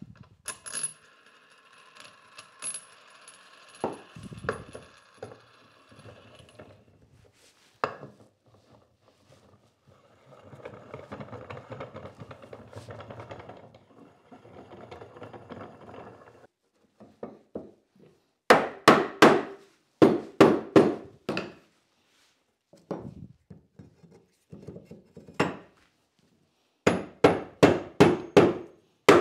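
Metal clinking and ringing, then a scraping stretch, as cast iron handwheels are fitted and spun onto a Moxon vise's threaded steel screws. Then two runs of sharp hammer blows, which are holdfasts being knocked into the bench's dog holes to lock the vise down.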